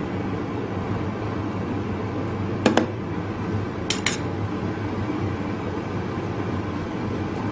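A steady low rumble, like shop machinery or a forge running, with light metallic clinks of steel on steel, twice in a quick pair about a third and halfway in.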